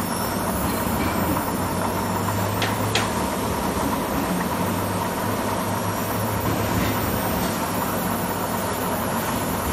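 Steady hum and rumble of workshop machinery running, with two sharp clicks about two and a half and three seconds in.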